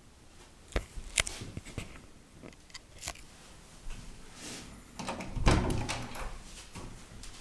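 A run of sharp clicks and knocks, with a louder clatter of knocks about five seconds in, like fittings being handled in a small room.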